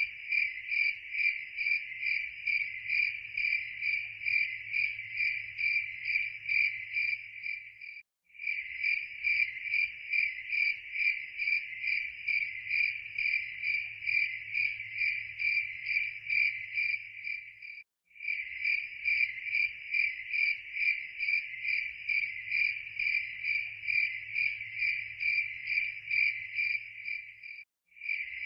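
Crickets chirping in a steady pulsing trill, about three chirps a second, cutting out briefly about every ten seconds as the recording repeats.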